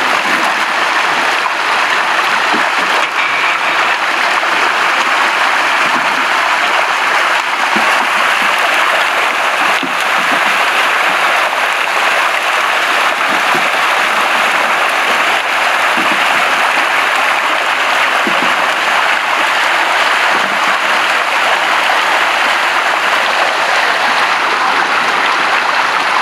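Hundreds of milkfish thrashing at the surface inside a closing seine net, making a dense, steady splashing.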